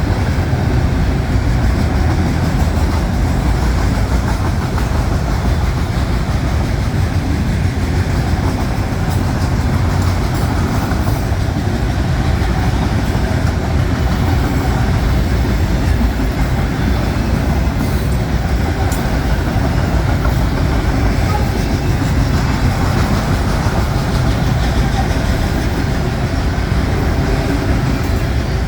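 Freight cars of a mixed freight train rolling past: a steady, heavy rumble of steel wheels on the rails with a few faint clicks.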